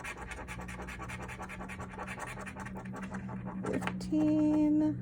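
Scratch-off lottery ticket being scratched, a fast run of short rasping strokes, several a second, that stops shortly before the end.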